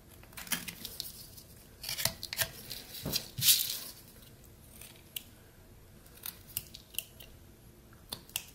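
Rough Rider pocket knife blade slicing small cuts into pine wood: short sharp scraping snicks at irregular intervals, a quick cluster about two seconds in and a longer, louder cut about three and a half seconds in.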